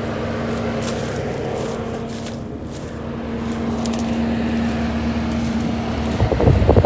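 Kubota SVL75-3 compact track loader's diesel engine running steadily with a low, even hum. Louder, uneven noise breaks in about six seconds in.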